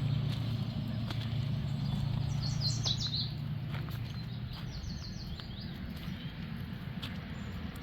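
Small bird chirping in two quick runs of short, high, falling notes, over a low steady motor hum that fades out about four seconds in, with a few faint clicks.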